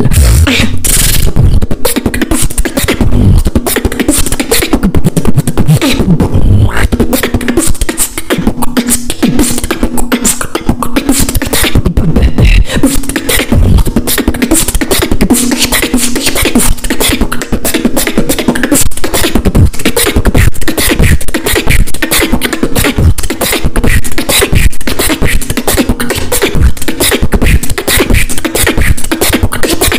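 Solo beatboxing: a fast, unbroken run of mouth-made drum sounds and clicks, with a steady hummed tone underneath for much of it.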